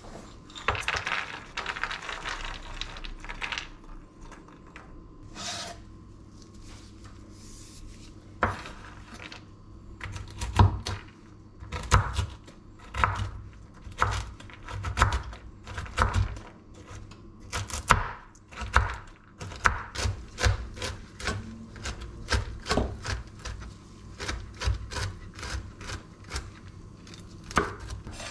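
Walnut pieces tipped from a steel bowl onto a bamboo cutting board, rattling for about three seconds near the start. From the middle on, a chef's knife chops them on the board in irregular sharp strikes, one or two a second.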